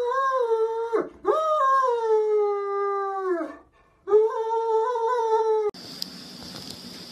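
A dog howling: three long, high howls, the second sliding down in pitch as it fades out, the third cut off abruptly. A steady hiss follows for the last second or so.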